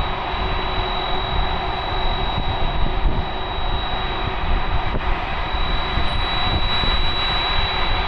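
Jet airliner engines running steadily: a broad rush with a constant high-pitched whine.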